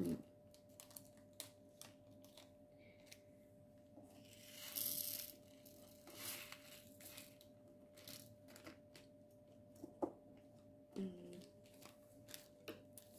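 Faint clicks and taps of small plastic storage containers and resin diamond-painting drills being handled, with a longer rustling sound about five seconds in.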